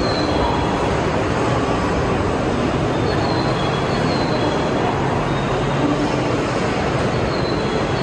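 Train running with a steady rumble and rolling noise, with a few faint, brief high squeals from the wheels.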